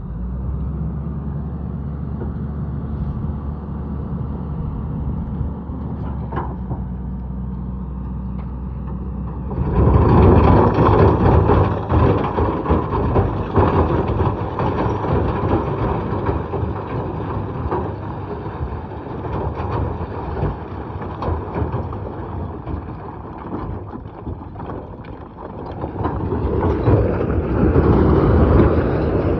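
A Mahindra vehicle's engine running with a steady, even low hum. About ten seconds in it abruptly turns much louder and noisier and stays that way, swelling again near the end.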